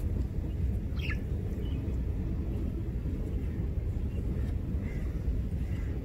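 Steady low outdoor rumble of wind and surf, with one short falling bird call about a second in and a few faint chirps later on.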